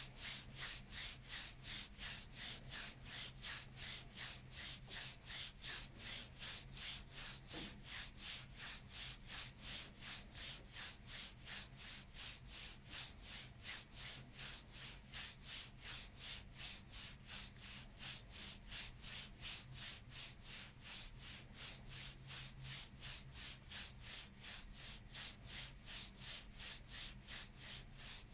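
Hands rubbing and rocking rhythmically on a bare back, a soft swishing of skin and gown about three times a second.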